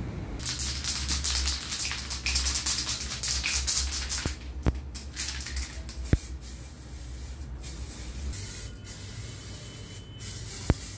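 Aerosol spray-paint can hissing in several long bursts with brief breaks, laying a second coat over primed wooden key cutouts. A few sharp clicks fall between the bursts.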